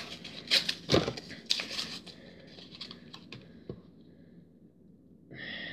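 A small toy ring's wrapper being torn open and crinkled by hand, with several sharp crackles in the first two seconds, then a few fainter ticks as the ring is handled.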